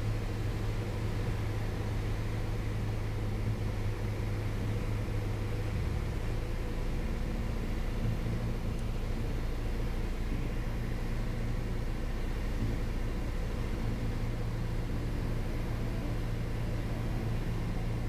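Piper PA-28 Archer 180's four-cylinder Lycoming engine and propeller droning steadily in flight, with a slight change in tone about six seconds in.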